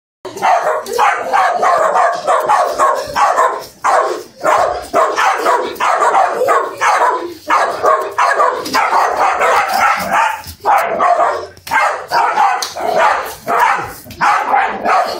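Italian greyhounds barking over and over in a fast, almost unbroken run of barks, excited while chasing in play.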